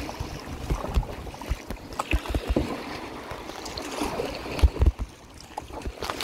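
Water splashing and dripping around a kayak: drops falling from the paddle blade and small irregular splashes at the hull. A few low thumps come a little before five seconds in.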